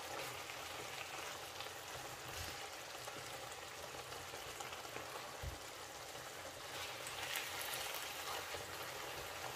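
Pumpkin-leaf and fish stew simmering and sizzling softly in a frying pan on the hob, stirred with a wooden spoon; the sizzle grows a little louder about seven seconds in.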